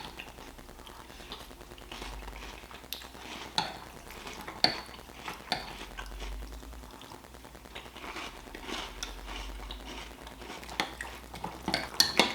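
A spoon clinking and scraping against a bowl of cereal and milk, with a few scattered sharp taps and a quick cluster of them near the end.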